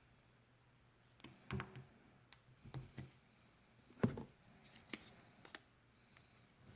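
Play-Doh playset pieces being handled: scattered light clicks and knocks, irregular, the loudest about four seconds in.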